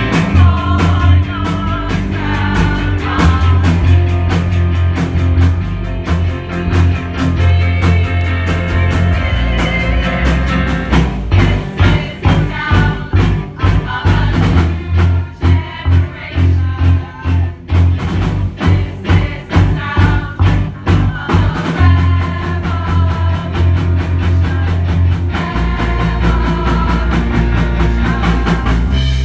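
Live rock band playing a song with singing, bass and drums. From about eleven seconds in to about twenty-two seconds in, the band plays short stop-start hits, then settles back into a steady groove.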